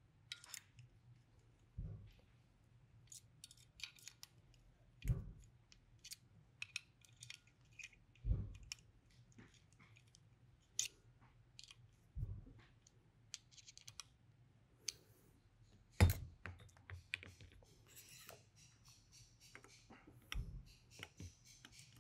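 Quiet handling of an airgun's metal parts: small clicks and taps as screws and the scope rail are fitted and driven in by hand, with a dull knock every three or four seconds.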